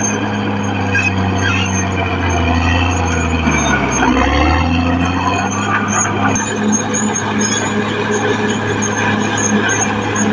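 Caterpillar D6R XL bulldozer's diesel engine running steadily and loud, its pitch dipping briefly about four seconds in and then recovering.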